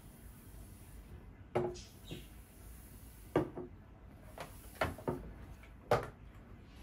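A series of short knocks and clatters of household objects being handled and set down, about eight of them at irregular intervals, the loudest near the middle and near the end.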